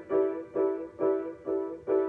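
Piano improvisation: the same chord struck over and over, about five times in two seconds, each stroke dying away before the next.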